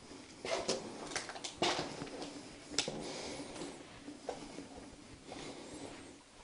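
Irregular footsteps scuffing and crunching on a gritty, debris-strewn floor, a dozen or so sharp clicks and scrapes with no steady rhythm, thickest in the first two seconds and with a sharp one about three seconds in.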